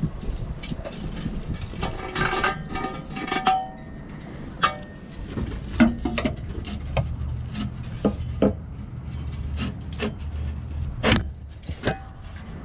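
Metal Steeda jacking rail being worked into place under a Mustang's subfloor: scraping against the underbody for a second or so early on, then a string of separate sharp knocks and clicks as it is pushed and shifted.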